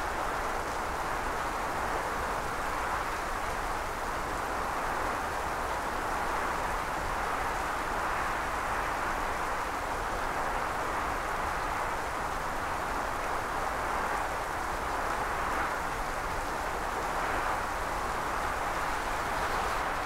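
Heavy rain and wind of a tropical storm beating down on trees and foliage, a steady, even rush that does not let up.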